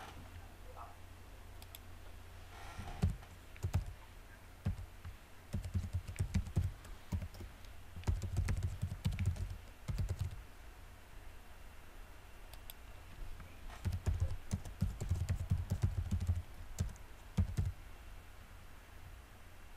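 Computer keyboard being typed on in several bursts of rapid keystrokes, with short pauses between the bursts.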